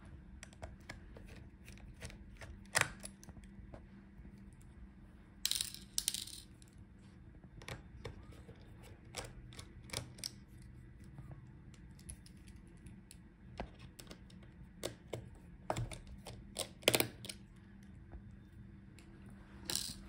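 Small screws being turned out of a laptop motherboard with a precision screwdriver: scattered faint metallic clicks and clinks, with a few louder short clatters.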